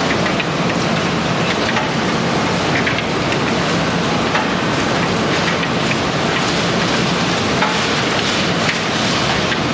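Machinery of a waste shredder plant running: a steady, dense rushing noise with a faint low hum underneath and many small scattered rattles and ticks.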